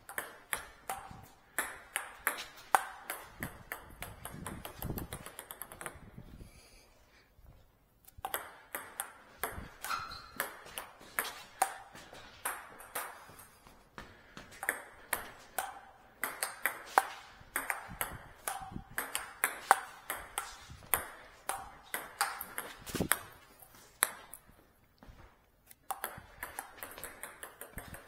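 Table tennis rallying: the ball clicking back and forth off bats and table, a few sharp pings a second, with two short breaks between rallies.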